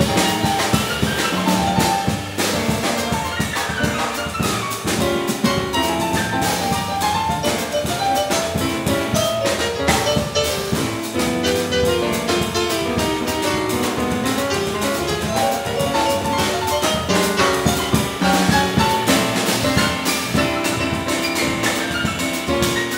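A small jazz group playing: running piano lines on a digital stage piano over a drum kit, with the drummer keeping time on the cymbals.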